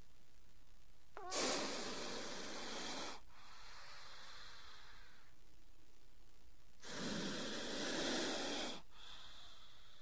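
Cobra hissing: two long breathy hisses of about two seconds each, the first starting just over a second in and the second about four seconds later, each trailing off in a fading echo.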